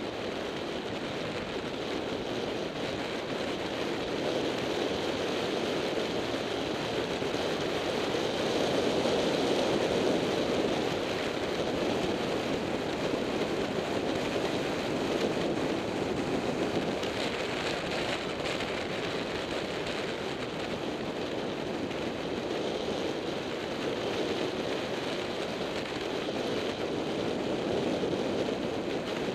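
Wind and road noise rushing over a bike-mounted camera's microphone at high speed on a road-bike descent: a steady rushing noise with no distinct tones, swelling a little about nine seconds in.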